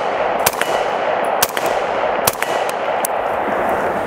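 AR-15 rifle with a 16-inch barrel, direct-impingement action and an H buffer, firing unsuppressed semi-automatic shots about a second apart. Each sharp crack is followed by a brief metallic ring.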